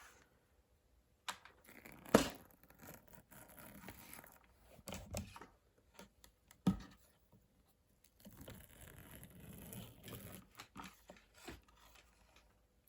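Stripped copper wire and its plastic insulation being handled, rustling and scraping, with a few sharp knocks.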